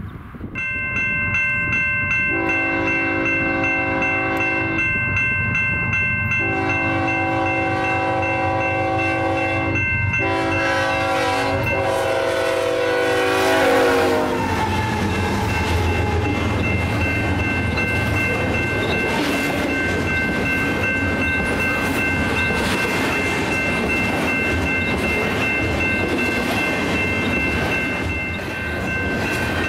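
A BNSF freight train's GE locomotive horn blows three long chords, starting about 2, 6.5 and 10 seconds in. The last is held as the locomotives pass and drops in pitch. Then the diesel locomotives and double-stack intermodal cars rumble and clatter past at speed, with steady high tones from the grade crossing's warning bell sounding throughout.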